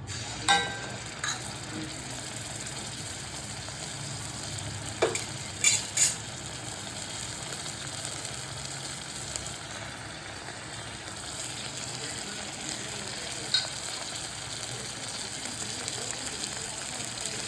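Chicken frying in oil in a pan with a steady sizzle while it is stirred, with a few sharp knocks, the loudest cluster about five to six seconds in.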